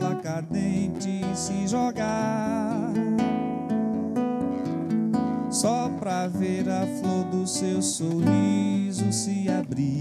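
Live acoustic guitar strummed and picked in an MPB song, with a man singing along into a microphone in a wavering, gliding voice.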